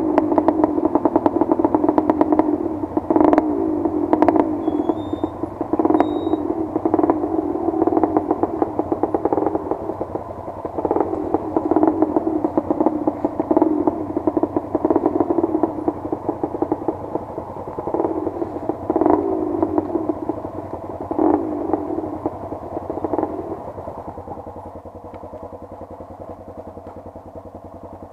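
Off-road motorcycle engines running at low speed, the throttle opening and closing in repeated surges, with sharp knocks and clatter as the bike bounces over the rough trail. About 24 seconds in the surges stop and the engine settles to a quieter, steady low-speed run.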